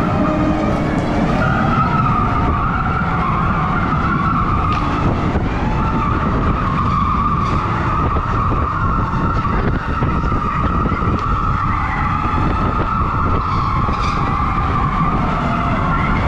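Electric go-kart running at speed, heard from on board: a steady high motor whine that rises and falls a little in pitch, over continuous tyre rumble and hiss.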